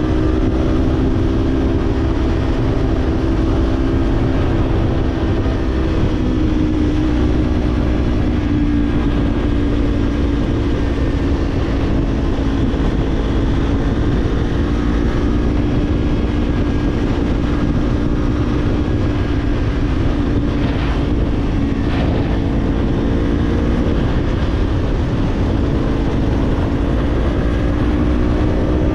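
Kawasaki Z-series parallel-twin motorcycle engine with an Orion Katya slip-on exhaust, running at a steady cruising speed under heavy wind rush on the microphone. The engine note sags slowly, then rises near the end as the revs climb.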